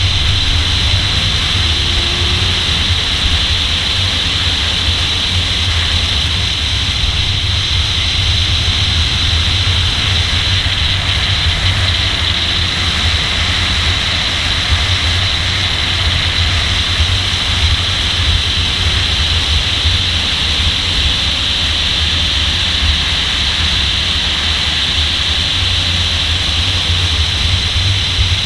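A car at speed on a race track, heard from a camera on its hood: a steady rush of wind over the microphone on top of a low engine and road drone.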